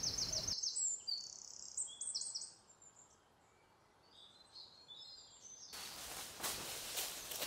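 Birds chirping and trilling, with a fast run of repeated high chirps at the start, fading low through the middle. From just under six seconds in, footsteps crunching through dry fallen leaves down a slope; this is the loudest part.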